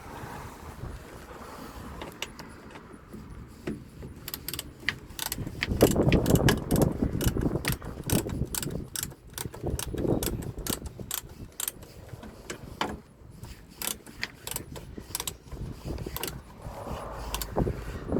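Socket ratchet wrench tightening a bolt: a long run of quick ratchet clicks, several a second, with some clunks of handling in between.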